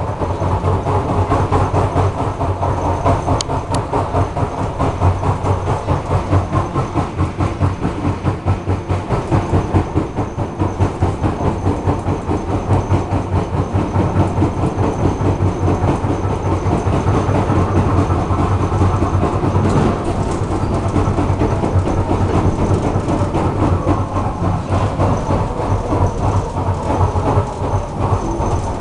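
Inside a car of an ER2R electric train, the bogie gives a fast, steady run of knocks over the rolling noise and a low hum as the train moves. It is an unusual knock whose cause the rider cannot explain.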